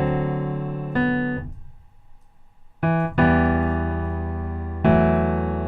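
Piano chords being played, each one held and dying away before the next, with a short pause about two seconds in.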